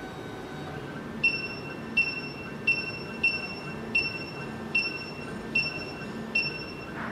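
SEC-E9 CNC key cutting machine decoding a key: over a low steady machine hum, a short high tone that starts with a click repeats about every three-quarters of a second, beginning about a second in, as the machine reads the key's cuts.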